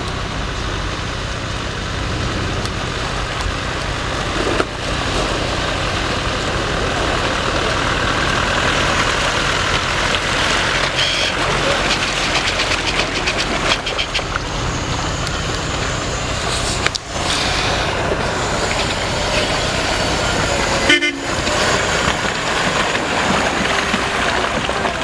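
Four-wheel-drive off-road vehicles' engines running under load as they drive through a muddy, snow-covered track, a steady rumble mixed with tyre and mud noise. The sound breaks off abruptly a few times, about five, seventeen and twenty-one seconds in.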